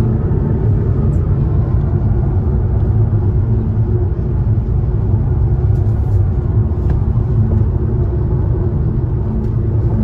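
Steady low rumble of a car driving on a highway, heard from inside the cabin: road and engine noise.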